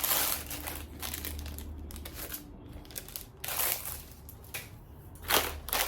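Sandwich wrapping paper crinkling and rustling as it is handled, in irregular bursts, loudest at the start, about three and a half seconds in, and near the end.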